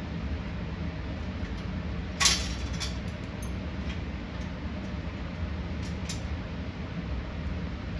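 Metal clinks of hand tools and bolt hardware while brackets are bolted on: one sharp clink about two seconds in and a few fainter clicks later, over a steady low hum.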